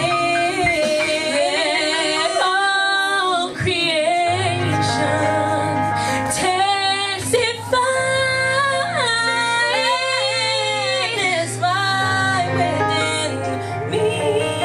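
Gospel praise-and-worship singing led by female voices, with steady instrumental backing and a bass line underneath.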